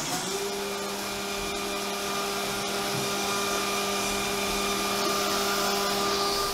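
CNC vertical mill cutting aluminum under flood coolant. The spindle comes up to speed at the start, then gives a steady hum with a higher overtone over the hiss of coolant spraying inside the enclosure. It is re-running the finishing contour after a one-thou tool wear offset update.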